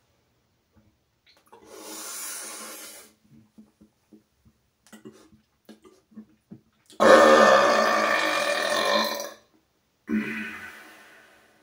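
A man burping deliberately. A softer airy sound and a few small clicks come first, then a long, loud, low burp about seven seconds in, and a shorter burp that fades near the end.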